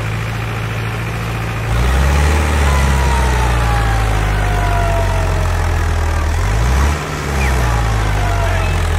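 Heavy vehicle engine pulling under load, revving up sharply about two seconds in and holding, with a brief dip near seven seconds, as a pickup stuck in wet sand and water is hauled out.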